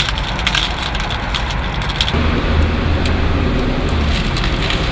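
Go stones clicking and rattling as players' fingers rummage in their stone bowls and set stones on a wooden board, many irregular small clicks over a steady traffic rumble.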